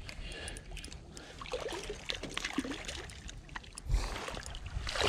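Water splashing and sloshing in the shallows as a hooked trout thrashes near the landing net, with a few heavier splashes near the end.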